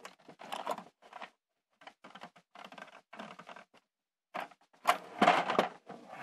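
Littlest Pet Shop plastic toys and playset handled on a wooden floor: a string of small plastic clicks and clatters, with a louder rustling bump about five seconds in.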